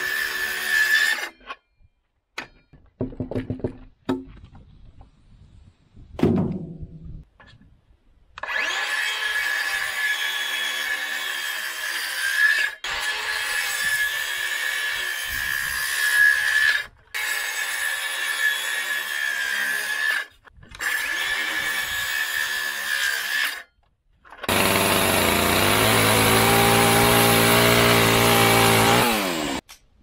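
Circular saw cutting through a thick rough-cut timber beam, in several long stretches separated by short pauses and a few knocks. In the last stretch the saw runs louder, and its pitch drops as the motor winds down just before it stops.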